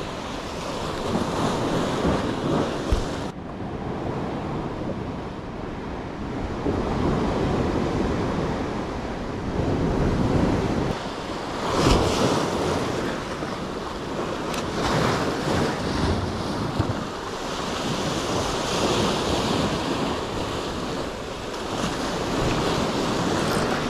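Wind buffeting the microphone over the steady wash of sea waves, with a few brief knocks.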